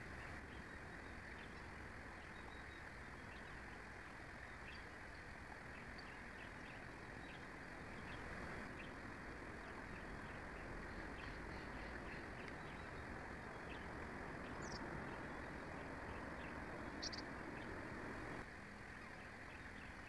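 Outdoor ambience of a steady hiss of wind and background noise, with many faint, short bird chirps scattered through it and two sharper, higher chirps in the second half. The background changes abruptly twice.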